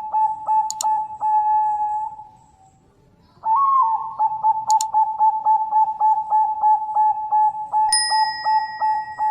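Zebra dove (perkutut) cooing in a long run of rapid, clear, evenly pulsed notes at about three to four a second, stopping for about a second and a half partway through and then resuming. This is the 'nutut' call of a female calling a male, used as a lure for other perkutut. Near the end a bell-like ding rings out over the cooing.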